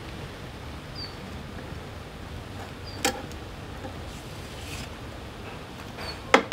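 Metal tongs knocking against firewood and the wood-fired stove as the fire under the karahi is poked. There is one sharp knock about three seconds in and a quick cluster of louder knocks near the end, over a steady low hiss with faint short high chirps every couple of seconds.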